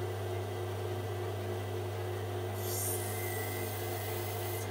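Lapidary cabbing machine running with its water-cooled grinding wheel spinning: a steady motor hum under a wash of water spray. About halfway through a brief sharper hiss rises as the rough opal is pressed back onto the wheel to grind it.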